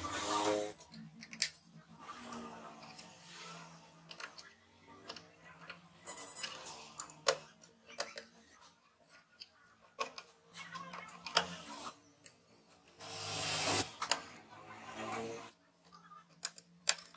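Scattered sharp clicks and taps of a screwdriver and stripped wire ends at the screw terminals of a switching power supply and a motor speed-controller board, with rustling of wires being handled, including a longer rustle about two thirds of the way through.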